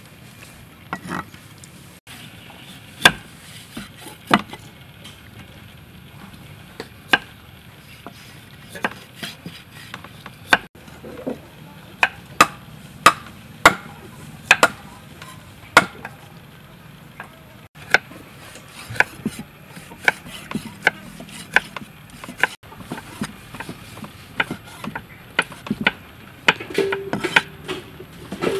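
Meat cleaver chopping raw pork belly on a thick round wooden chopping block: irregular sharp knocks, coming more often in the second half.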